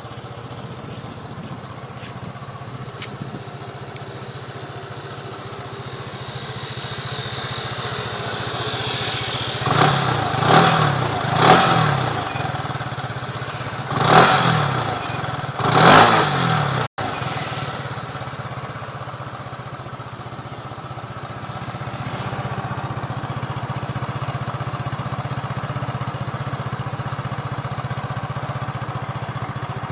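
Motor scooter fitted with an aftermarket performance exhaust (阿達管), idling steadily, then revved in five quick throttle blips, each rising and falling in pitch, before settling back to idle.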